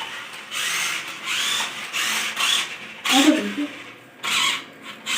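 Toy remote-control car's small electric motor whirring in about six short throttle bursts, its whine rising and falling in pitch with each burst.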